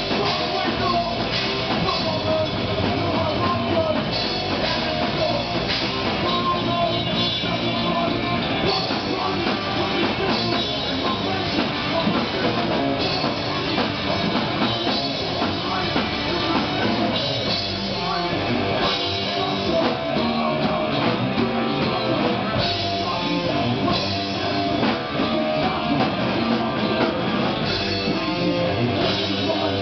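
Live rock band playing continuously: electric guitars over a drum kit.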